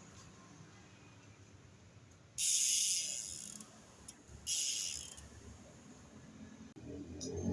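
Two short hissing blasts of pressurised gas, the first about a second long and the second a little shorter, then a low rumble building near the end.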